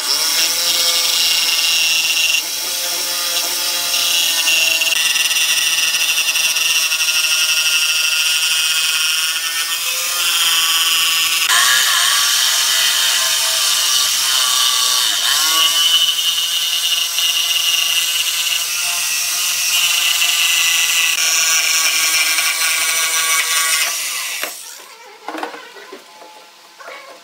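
DongCheng DMQ85 electric jigsaw cutting out a circle in a thick pine board, its motor whine dipping in pitch now and then. The saw stops about 24 seconds in, leaving only quieter handling of the wood.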